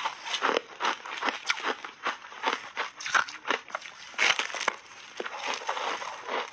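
Pink frozen shaved ice dusted with milk powder crunching as it is bitten and chewed close to the microphones. It makes a dense, irregular run of sharp cracks and crackles.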